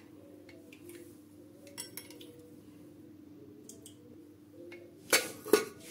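A faint steady low hum with a few light clicks, then metal cookware clattering and knocking near the end.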